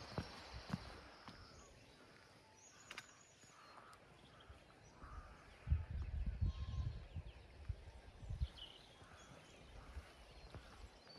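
Faint outdoor ambience with a few brief high chirps and some low rumbles, loudest a little past halfway.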